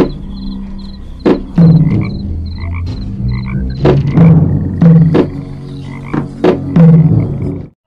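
Frogs croaking at night, loud low croaks coming every second or so, with a thin high chirping repeating a few times a second through the first half. The sound cuts off abruptly near the end.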